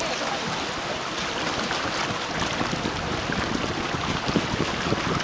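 Wind buffeting the microphone over water lapping on a lake, a steady rushing noise with small splashy ticks; the low wind rumble grows stronger about two seconds in.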